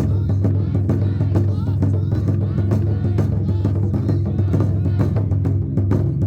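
Festival taiko drums beaten in a fast, dense, steady rhythm.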